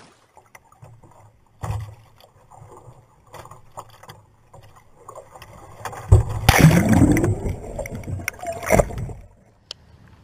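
Water lapping against a sea kayak, with a thump about two seconds in. About six seconds in comes a loud rush and splashing of water for about three seconds as the kayak tips over.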